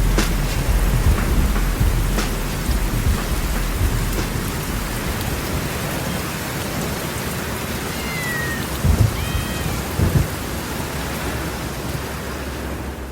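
Steady rain falling with a low rumble of thunder that is strongest at first and gradually fades, the rain easing slightly in level.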